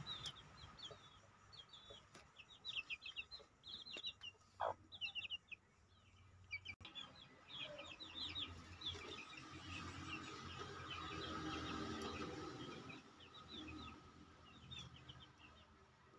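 Aseel chickens: chicks peeping in quick, high runs of short chirps again and again, with some low clucking from the hens.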